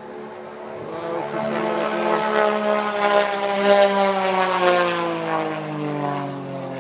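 Aerobatic stunt plane's engine flying past, growing louder to a peak and then falling in pitch as it passes and draws away.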